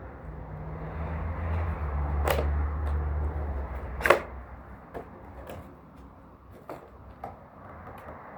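Cardboard toy box and its packaging being handled and searched, giving scattered sharp taps and clicks; the loudest comes about four seconds in. A low rumble sits under the first half.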